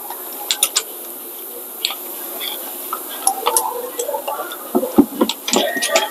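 Scattered metallic clicks, taps and light knocks as a rusty rear brake caliper is handled and worked into place over the pads. The knocks come thicker and sharper near the end.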